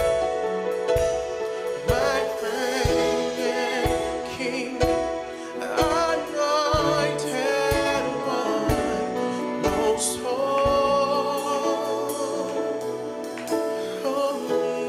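Live worship music: a woman and a man singing over sustained Yamaha MO8 keyboard chords, with a soft beat about once a second.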